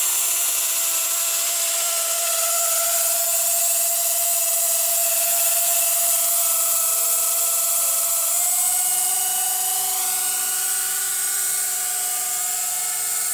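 Blade 130X electric RC helicopter in flight, its motors and rotors giving a steady high whine over a rushing hiss. The whine shifts in pitch as it manoeuvres, stepping up about eight seconds in.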